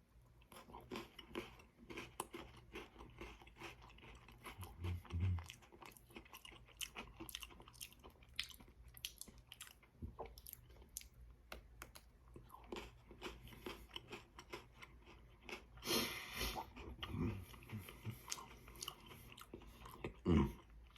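Close-miked biting and chewing of chocolate-covered Pocky biscuit sticks: many small crisp crunches throughout, with a louder burst of crunching about sixteen seconds in.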